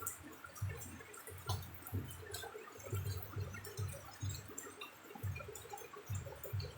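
Rain and dripping water, faint, with scattered small drop ticks and irregular soft low thuds.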